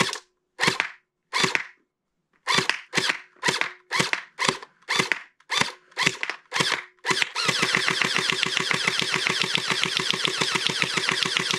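SplatRBall SRB375 electric gel blaster firing at a target: sharp single shots, about two a second after a brief pause. From about seven seconds in it switches to a continuous rapid rattle of full-auto fire.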